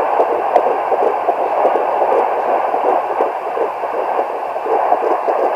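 Hi Bebe handheld fetal doppler picking up an 11-week fetus's heartbeat: a rapid, steady whooshing pulse heard through the device's small speaker.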